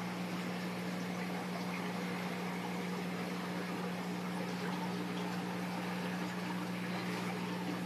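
Aquarium aeration: a bubble wall bubbling steadily over a constant low hum from the tank's pump.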